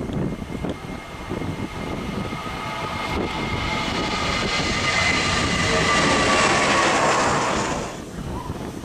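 Boeing 767-300ER jet engines at climb power as the airliner flies past and away, over a low rumble. A high fan whine with several tones grows louder and slowly falls in pitch, then drops away abruptly near the end.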